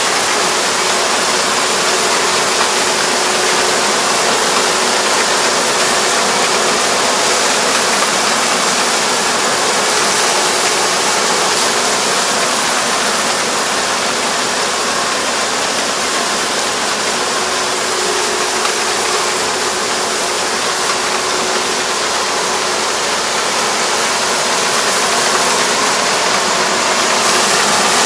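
Four-row rice combine harvester running as it cuts heavily lodged rice: a steady machine drone with a constant hum, growing louder near the end as the combine comes closer.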